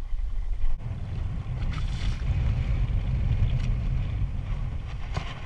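Wind buffeting the microphone over choppy sea water splashing along a small boat's hull, a steady low rumble with a hiss of spray.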